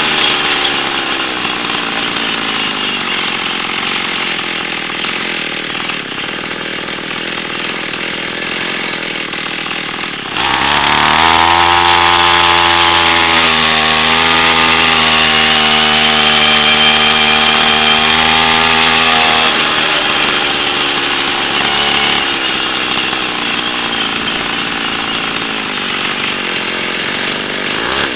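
49cc two-stroke pocket-bike engine on a motorized bicycle, heard from onboard. Its pitch falls as the bike slows, then it is mostly covered by a rushing noise. About ten seconds in the throttle opens and the engine revs up with a rising buzz, holds a steady buzz for several seconds, then sinks back under the rushing noise.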